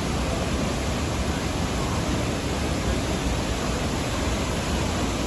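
Düden waterfall's falling water, a steady unbroken rush.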